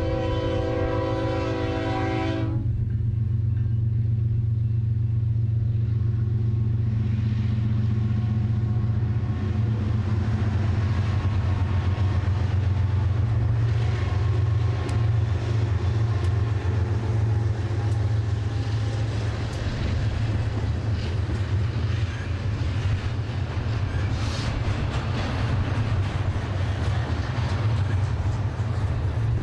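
Air horn of a GE ES44DC freight locomotive sounding a chord, cutting off about two and a half seconds in, over the deep steady rumble of the passing diesel locomotives. Then the wheels of a double-stack container train roll by with a rising rail noise and scattered sharp clicks.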